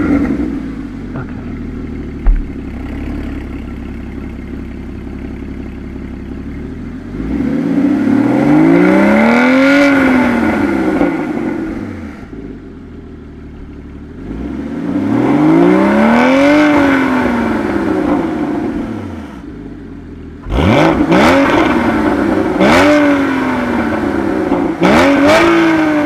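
Porsche 981 Cayman GT4's stock 3.8-litre flat-six exhaust, just started and idling, then revved twice in long sweeps that rise and fall back. It ends with a run of quick, short throttle blips. A single sharp knock comes about two seconds in.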